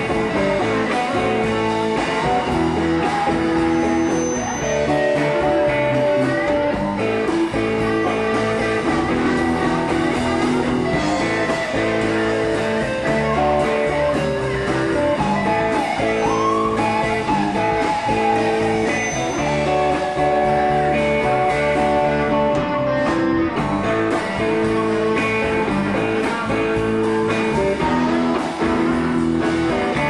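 Live rock band playing an instrumental break: electric and acoustic guitars over drums, with no vocals.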